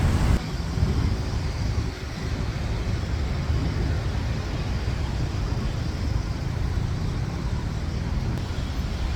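Steady low rumble of road-vehicle noise, engine and tyres, with no distinct events.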